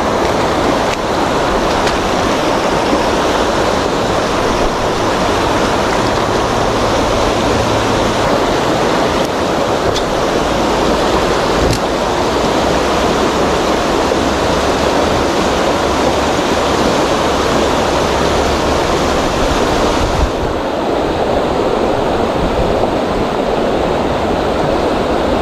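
River rapids rushing over a rocky bed: a steady, loud wash of flowing water, its hiss turning slightly duller about twenty seconds in.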